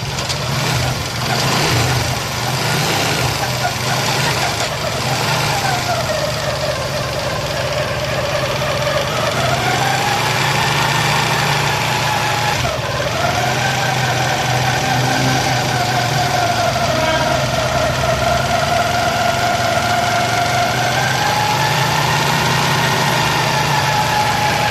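Old motorcycle engine running in gear with a loud gear whine that slowly rises and falls in pitch with engine speed, the noise of an old wagon or rickshaw. The mechanic traces it to a worn primary (free) gear with hardened cushion rubbers, or to worn, pitted gearbox teeth.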